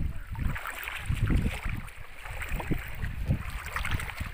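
Shallow seawater sloshing and splashing, with wind gusting on the microphone as an uneven low rumble.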